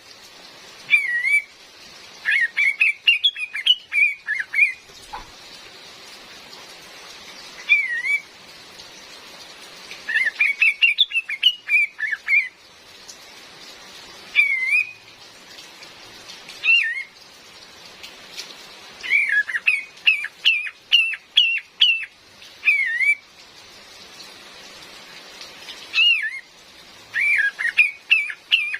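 Female kapas tembak calling in short bursts of quick, bending chirped notes, some single and some in rapid runs, repeated every few seconds. Steady rain hiss underneath.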